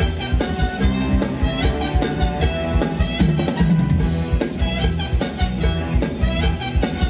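Live band playing upbeat Thai ramwong dance music, with a steady drum-kit beat.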